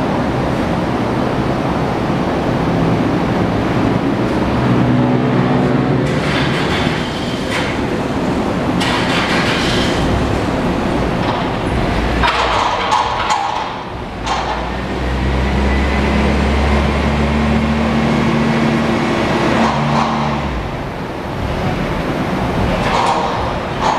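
Steady workshop background rumble, with a machine's low hum coming in for a few seconds past the middle and brief hissy rustles.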